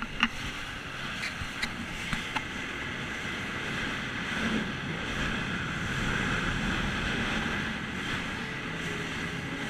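Jet ski running at speed, its engine under the rush of water spray and wind on the microphone, with a few sharp taps in the first couple of seconds.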